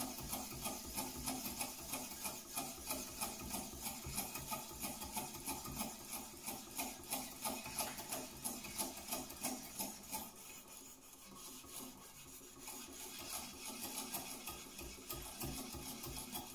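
A wet Naniwa Chosera waterstone on a guided sharpening rod, rubbed in quick, even back-and-forth strokes along a steel knife edge, about three strokes a second. The strokes fade about ten seconds in and pick up again a couple of seconds later.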